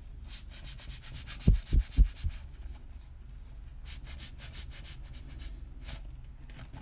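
Hands squeezing and rubbing a rubber RC car tire: two runs of quick, short rubbing strokes, with three heavy low thumps about a second and a half in.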